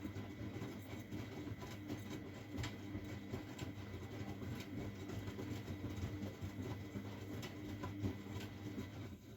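Miele Novotronic W912 front-loading washing machine running: a steady motor hum with a rumble and scattered light knocks as the drum turns, stopping abruptly at the end.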